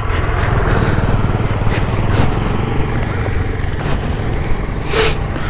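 Two-wheeler engine running steadily while the bike rides along a dirt track.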